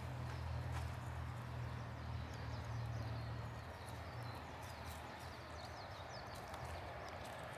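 Outdoor garden ambience: small birds chirping high and light over a steady low rumble that eases off about halfway through.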